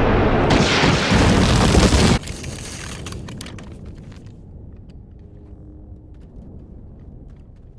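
A loud explosion sound effect from a Star Wars film: a heavy blast of noise that cuts off suddenly about two seconds in, leaving a low rumble with faint crackles that slowly dies away.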